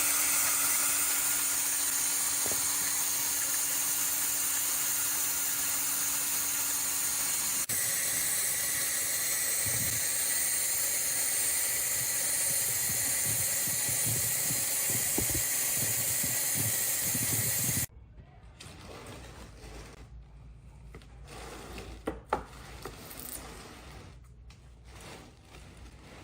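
A loud, steady hiss of air blowing sawdust off the wood, cutting off suddenly after about eighteen seconds. After that come quieter scattered clicks and knocks.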